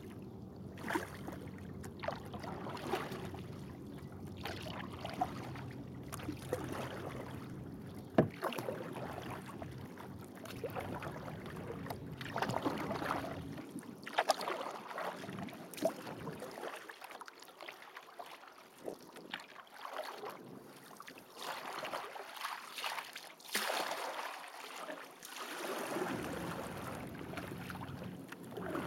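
Kayak paddle strokes: the double-bladed paddle dipping and pulling through calm water, alternating sides, with splashes and drips at an unhurried, even pace.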